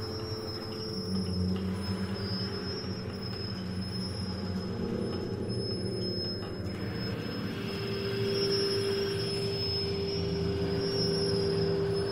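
Orchestra with live electronics playing contemporary music: layered sustained low tones and airy, grinding noise under a thin high held tone. About seven seconds in, a steady mid-pitched tone and brighter hiss enter and the sound swells slightly.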